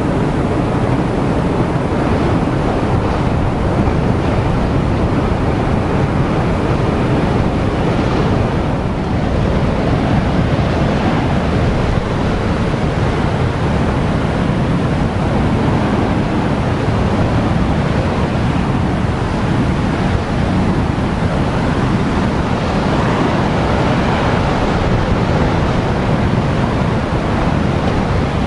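Heavy ocean surf breaking and washing against granite rocks, a steady loud rush, with wind buffeting the microphone.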